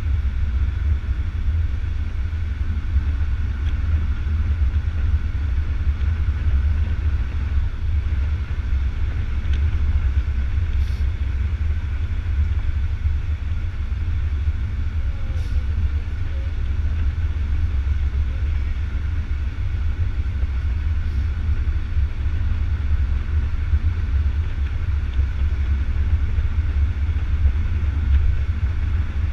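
Steady low rumble of wind buffeting the microphone of a camera held out at a moving car's window, mixed with the car's road and engine noise.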